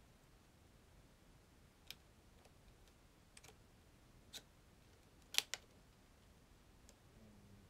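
A few scattered sharp clicks and taps from handling a portable hard drive's box, with a quick double click about five seconds in as the loudest; otherwise near silence.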